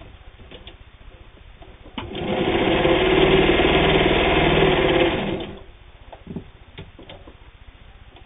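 Vintage New Home electric straight-stitch sewing machine with worm-gear drive, starting about two seconds in and running fast for about three and a half seconds as it stitches through four layers of flannel-backed denim, then stopping. Light clicks of handling before and after.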